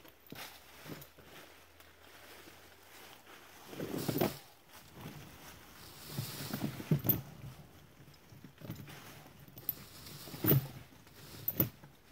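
A steel chain rattling and clinking as it is wrapped around a fallen log, with dry leaves rustling under a kneeling person. Several sharper clinks stand out in the second half.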